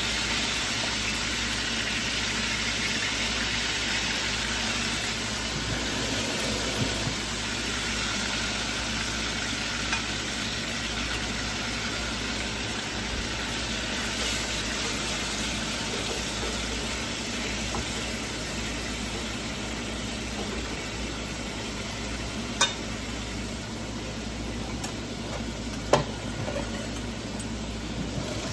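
Pieces of beef sizzling in a hot frying pan, a steady hiss that eases a little toward the end. Two sharp knocks in the last few seconds.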